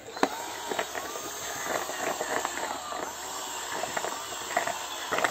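Cordless drill drilling through a plastic bottle, run in short bursts, the motor pitch rising and falling several times with crackling and knocking from the bit in the thin plastic.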